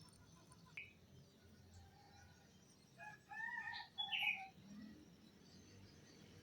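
A rooster crowing once, starting about three seconds in and lasting about a second and a half, ending on a higher falling note.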